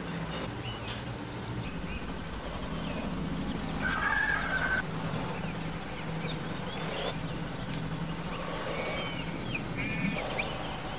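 Scattered bird chirps and short trills over a steady low hum, with one louder held call about four seconds in.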